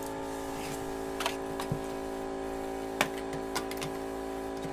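A knife-like hand tool scraping and tapping on a freshly cast plaster figure to smooth its details, a few short sharp taps, the loudest about three seconds in, over a steady machine hum.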